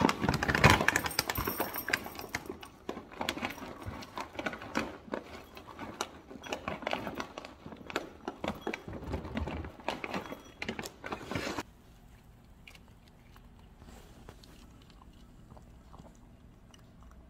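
Dry cat kibble rattling out of a plastic bag into a ceramic bowl, then a cat crunching the kibble as it eats, a dense run of small crackles. The crunching stops about two-thirds of the way through, leaving only a faint background.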